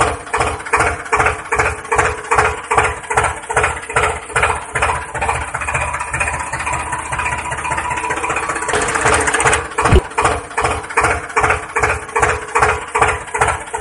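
Tractor engine idling with a regular pulsing beat of a few strokes a second, evening out for a few seconds past the middle. A sharp click about ten seconds in.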